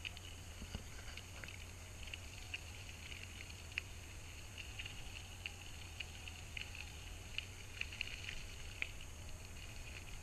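Faint irregular crackling and small ticks of bicycle tyres rolling over a gravel road, over a low steady rumble.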